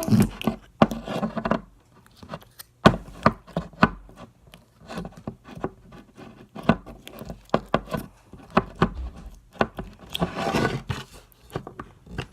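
Irregular quick clicks, taps and rubbing close to the microphone, as of things being handled on a hard surface, with a denser stretch about ten seconds in.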